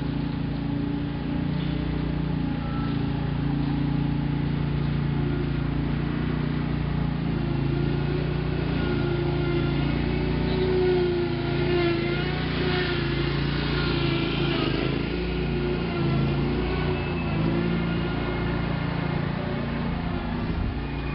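Large motorised garage doors running open or shut: a steady electric-operator hum runs throughout, with wavering higher tones in the middle.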